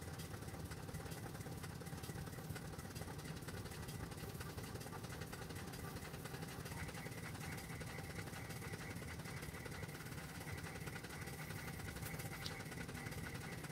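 Steady low hum of a motor running, unchanging throughout, with a faint thin high tone that joins about halfway through.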